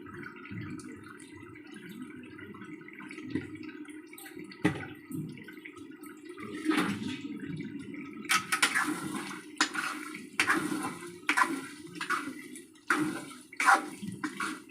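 Chicken curry frying and bubbling in oil in a kadai, a steady sizzle. From about eight seconds in, a ladle stirring and scraping the pan in quick repeated strokes.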